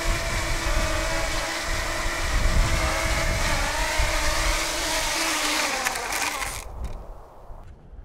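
An engine running, its pitch wavering slightly, over a steady hiss and low rumble; it dies away about seven seconds in.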